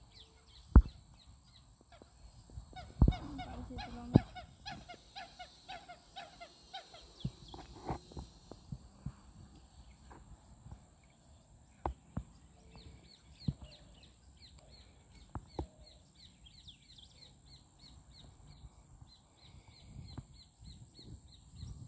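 Birds calling: a rapid run of short repeated calls from about three to eight seconds in, with fainter calls later on. A few sharp knocks sound here and there.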